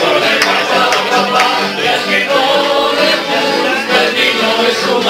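A Spanish tuna, a group of men singing together in chorus to strummed Spanish guitars.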